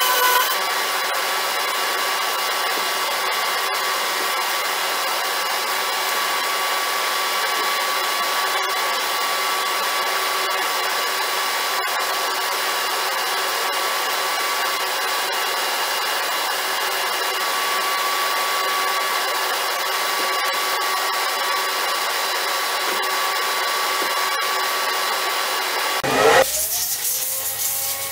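A small electric motor runs steadily with an airy hiss and a fixed whine. About 26 seconds in, the sound changes abruptly with a brief louder moment.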